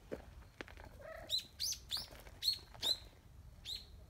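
A bird calling with a run of sharp, high chirps, each dropping in pitch, about six in two and a half seconds. Just before them, a cat gives a short mew.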